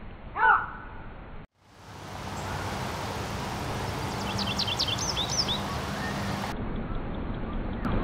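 Male American goldfinch singing a quick run of high, twittering notes about four seconds in, over steady background hiss. Just before that comes a single short, loud sliding call that drops in pitch, about half a second in, cut off abruptly by a break in the sound.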